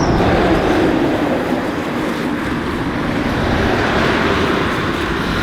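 Dirt bike engines running.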